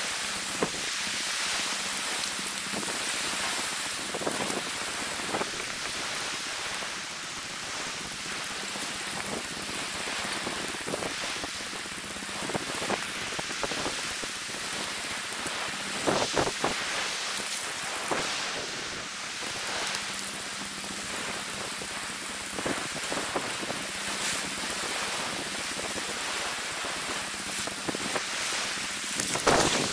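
Shallow sea water washing over wet sand at the water's edge, a steady hiss, with a few brief louder splashes.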